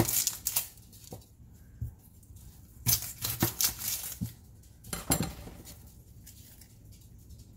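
Chef's knife slicing a red onion on a wooden cutting board: irregular knocks of the blade on the board with crisp cutting noises, busiest around three seconds in and again near five, then quieter near the end.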